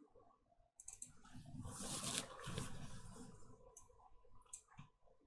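Faint computer mouse clicks, a few single clicks near the start and three or four more toward the end, with a soft rustling noise lasting about two seconds in between.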